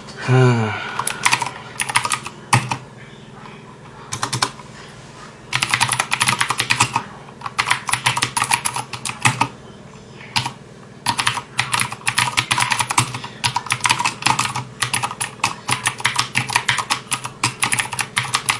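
Typing on a 61-key mechanical keyboard with Cherry MX Blue switches: sharp clicky keystrokes, a few scattered presses at first, then fast runs of typing from about five seconds in with a short pause near the middle. The clatter is a bit noisy. A brief voice sounds at the very start.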